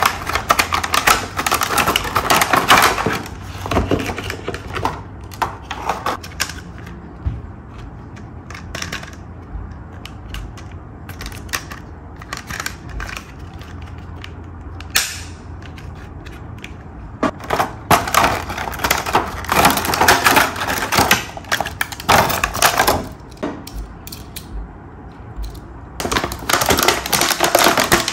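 Plastic toy packaging and Hot Wheels track pieces handled during an unboxing: crinkling and clicking in bursts of several seconds, with quieter spells between.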